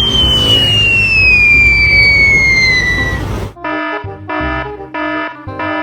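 Low vehicle rumble under a long falling whistle tone. About three and a half seconds in, it cuts abruptly to a repeated electronic beeping, roughly two beeps a second.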